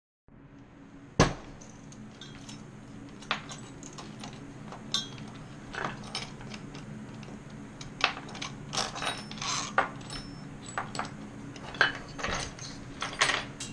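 Metal tools and hardware clicking and clinking as a motorized-bicycle kit engine is handled and worked on, with one sharp clack about a second in and quicker, busier clinks in the second half. A faint steady hum runs underneath.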